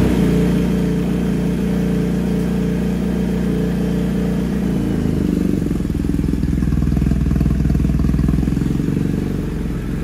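Shaft-drive motorcycle engine idling steadily just after being started. The bike had stood unused for a long time and is running on old fuel.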